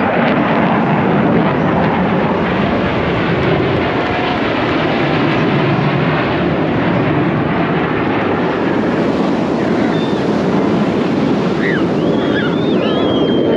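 Jet noise from the Air Force Thunderbirds' F-16 fighter jets flying over in formation: a loud, steady rush with no let-up. A few faint high calls come in near the end.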